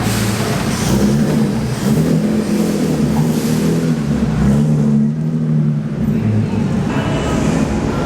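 Car engine running at low speed, its pitch rising and falling slightly as the car rolls along.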